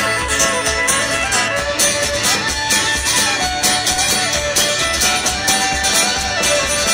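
Live band playing a fast instrumental break, a fiddle line over guitar and a steady drum beat.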